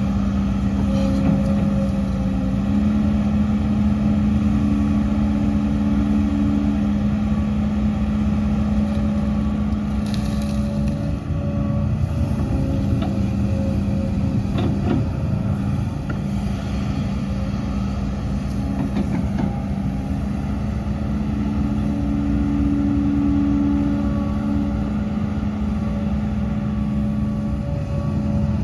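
Hidromek HMK230LC excavator's diesel engine running steadily with a strong, even hum, its pitch lifting slightly a couple of times. There are a few faint knocks near the middle.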